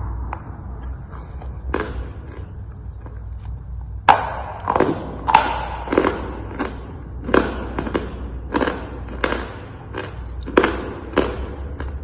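Dry chalk bitten and chewed close to the microphone, giving sharp, brittle crunches. They come a few at a time for the first four seconds, then at about two a second.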